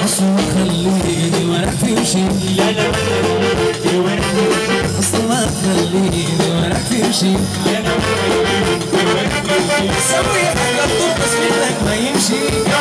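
Sudanese song performed live: a male singer on a microphone over band accompaniment with shaker-like percussion.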